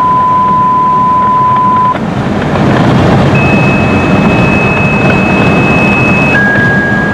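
Car cabin noise while driving on a road: steady tyre and engine rumble, growing a little louder about two and a half seconds in. Above it sits a thin, steady high tone that jumps to a different pitch twice.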